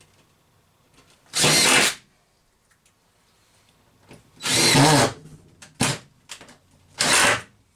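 Power drill driving screws, run in three short bursts of about half a second to a second each, with a couple of sharp clicks between the second and third.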